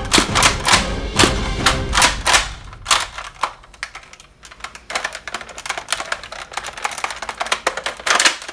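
The hard plastic of a Nerf toy blaster clicking and clacking as it is handled, over faint background music. For about the first three seconds the clacks come quickly and evenly, then they become sparser and quieter.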